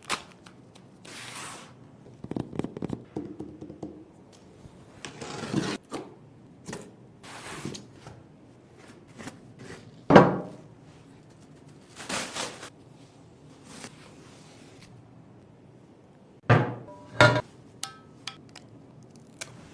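Unboxing handling sounds of a Touren TR79 wheel and its packaging: packaging rubbed, slid and scraped in short strokes, with a loud thud about halfway through and two sharp knocks near the end.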